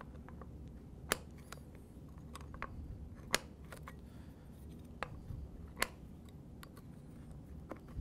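Small bicycle wrench clicking against the seat clamp's 15 mm nut as it is turned and refitted for each stroke: a series of short sharp clicks, the three loudest about two seconds apart.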